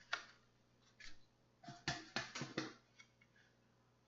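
A few light clicks and taps, bunched together about two seconds in, from a Samsung 860 EVO SATA SSD being handled.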